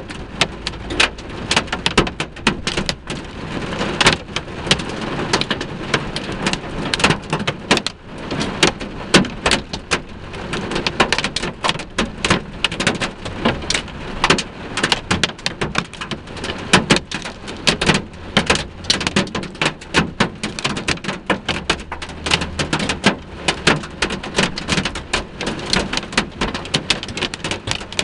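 Hail and rain pelting the vehicle's roof and windshield, heard from inside the cab: a dense, continuous clatter of sharp impacts that never lets up.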